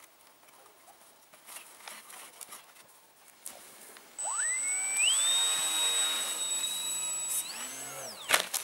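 Electric motor and propeller of a foam RC model plane spinning up at launch: a whine that rises sharply about four seconds in, holds at a high steady pitch, climbs briefly higher, then stops near the end.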